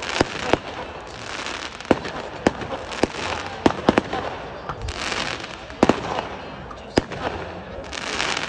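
Fireworks going off uncontrolled after the van storing them caught fire: about ten sharp bangs of bursting shells, some in quick pairs and triples, with stretches of crackling hiss between.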